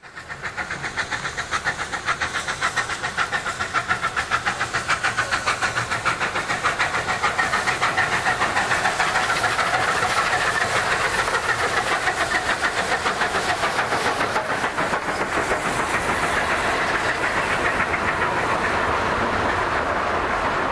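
Metre-gauge steam locomotive working a coal train, its exhaust chuffing in a steady rhythm of about four beats a second, with the wagons rolling past near the end.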